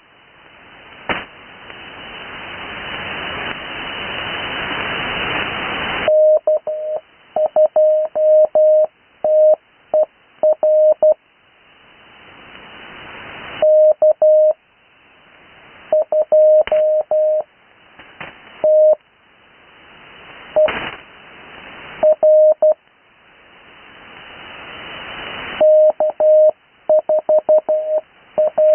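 Morse code (CW) tone of about 600 Hz keyed in spaced-out character groups, call signs sent slowly for practice and heard off-air on the 80 m band. In the long pauses between characters, band hiss swells up and is cut short each time the tone comes back.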